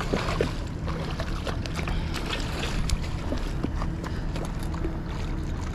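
Hooked yellowtail kingfish splashing and thrashing at the surface right against the seawall, a run of short sharp splashes over steady water and wind noise.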